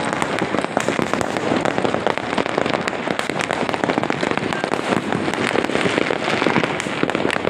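Many fireworks and firecrackers going off across a city at once, making a dense, unbroken crackle of countless pops and bangs with no pause.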